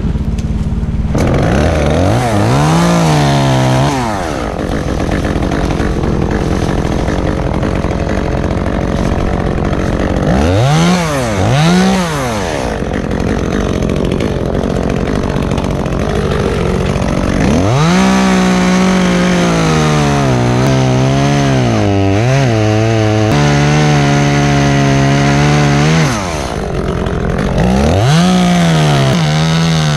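Echo gas chainsaw revving up in four bursts and idling in between. The longest burst runs about eight seconds, its pitch dipping and wavering under load as it cuts through limbs.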